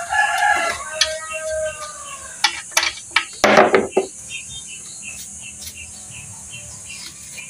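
Metal knocks and clinks as hands work in a metal oil drain pan under the engine, the loudest a short clatter about three and a half seconds in, with insects chirping steadily in the background.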